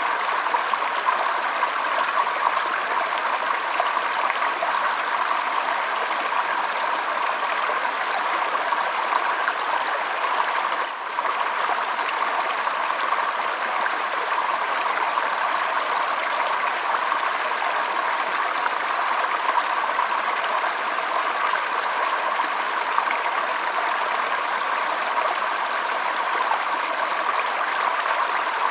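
Stream water running steadily, with one momentary dip in level about eleven seconds in.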